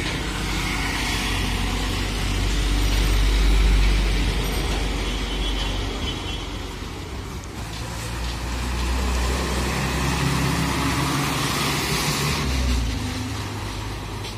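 Road traffic with heavy trucks driving past: a steady low engine rumble that swells twice, about four seconds in and again about twelve seconds in, as vehicles go by.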